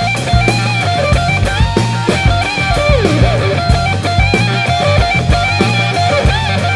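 Rock background music: electric guitar over a steady drum-kit beat and bass.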